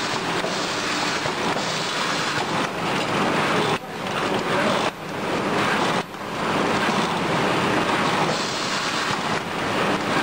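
Automatic cartoning machine running as it packs LED tube lights into cartons: a steady, dense mechanical noise, dipping briefly three times near the middle.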